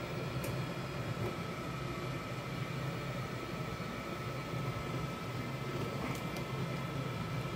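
Steady mechanical drone of running air-conditioning equipment: a low hum with a steady high whine above it, and a few faint clicks.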